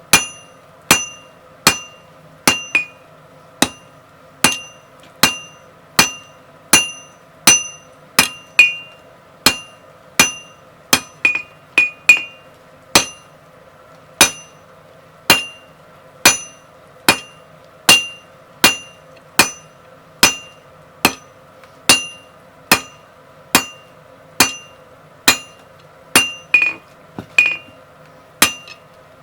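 Hammer blows on a hot round steel bar on the anvil, tapering it: sharp ringing strikes at about one and a half a second, some followed by a light rebound tap. A steady hum runs underneath.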